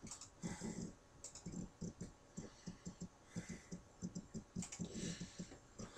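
Computer keyboard typing and clicking: a faint, irregular run of light key taps.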